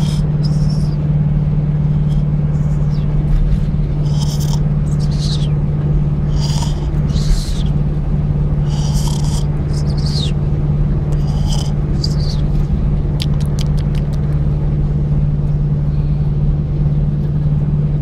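A man snoring in short, irregular snores every second or so, over the steady low drone of a moving truck cab's engine and road noise, which is the loudest sound.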